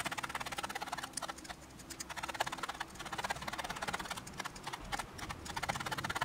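Felting needle jabbing black wool roving into a crocheted amigurumi, making a fast run of soft clicks, several a second.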